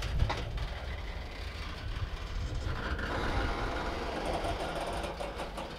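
Freight train of covered grain hopper cars rolling slowly past, its steel wheels rumbling low and steady on the rails with a couple of sharp clicks over the rail joints.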